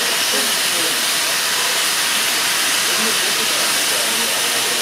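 Steam locomotive 3016 standing still and venting steam: a steady, loud hiss that does not change.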